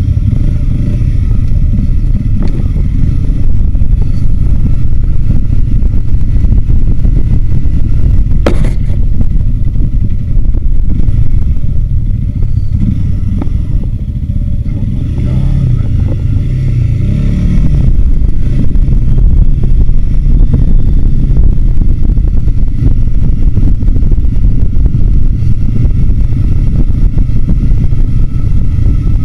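Adventure motorcycle riding along a dirt track: engine running with a loud, steady low rumble of wind noise over the bike-mounted camera. There is one sharp click about eight seconds in, and it eases off briefly in the middle before picking up again.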